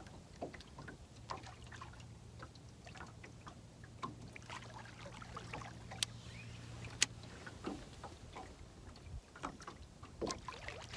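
A boat motor humming steadily and low at slow trolling speed, with light ticks of water against the hull and two sharp clicks about six and seven seconds in.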